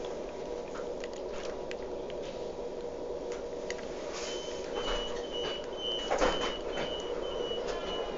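Class 377 Electrostar's door warning beeper sounding from about four seconds in, a rapid run of high beeps about three a second, over the train's steady hum, with a thump around six seconds in.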